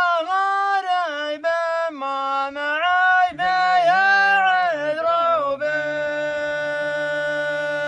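A man singing an Arabic song unaccompanied, his pitch bending and sliding between notes. A little past two-thirds of the way in, he holds one long steady note.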